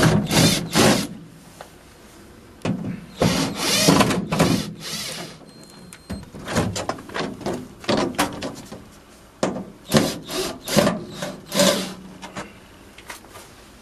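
Cordless drill-driver backing screws out of a van rear door's thin wooden lining panel. It whirs in several runs, the first two longer, then a quick series of short bursts from the middle to near the end.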